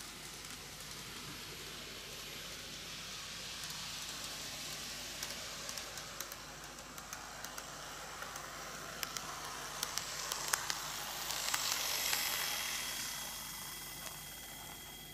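N-gauge model electric trains running on plastic track: a steady whirring hiss of wheels and motors that swells as a train nears, about twelve seconds in, then fades. Quick light clicks come in irregular runs before the peak, and a thin high whine appears after it.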